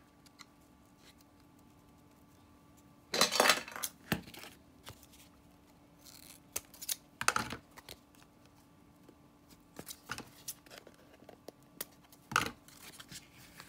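Scissors cutting off the excess ribbon trim at the edge of a paper gift tag, amid paper and ribbon handling. A loud rustle of handling comes about three seconds in, and scattered short snips and clicks follow.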